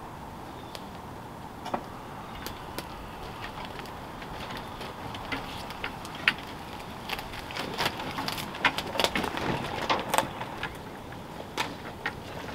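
Wooden mobile chicken coop on wooden wagon wheels being hauled by hand over grass: scattered knocks, creaks and rattles from its frame and wheels, coming thicker and louder about two-thirds of the way through.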